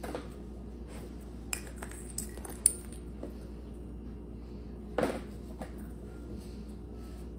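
Scattered sharp clicks and clatters of small plastic toys knocked about on a tile floor by a puppy, the sharpest about two and a half seconds in and a duller knock about five seconds in, over a steady low hum.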